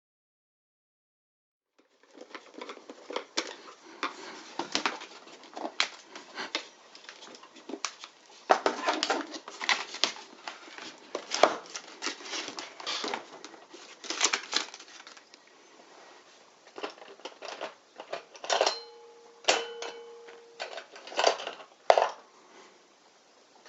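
A plastic battery booster box being unscrewed and handled: a steady run of irregular clicks, knocks and rattles of a screwdriver and loose screws against the plastic case. A short squeak sounds about two-thirds of the way through. The first two seconds are dead silence.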